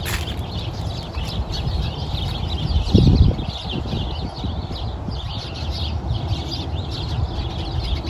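A flock of small birds chattering, with many short overlapping chirps and tweets. A steady low rumble runs underneath, with a louder low thump about three seconds in.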